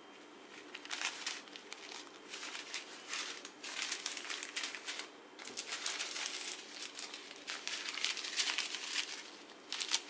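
Small zip-lock plastic bags of square resin diamond-painting drills crinkling as they are picked up, shuffled and handled, in irregular bursts starting about a second in.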